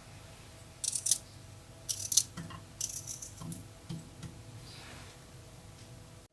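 Kitchen clatter: three quick bursts of crisp clinking and rattling about a second apart, followed by a few softer knocks.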